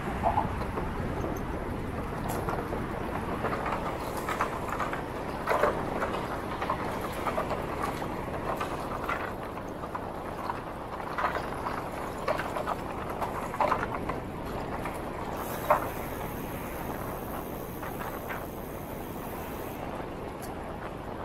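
Bicycle riding along: steady rolling and wind noise with irregular clacks and knocks from the wheels and frame.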